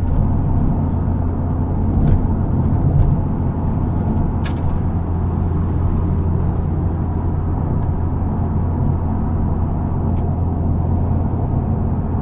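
Steady road and engine drone inside a car cabin while driving on an expressway.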